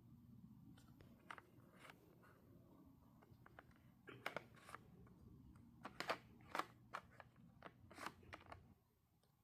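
A cat crunching and chewing treats: faint, irregular sharp crunches, coming thickest from about four seconds in until shortly before the end.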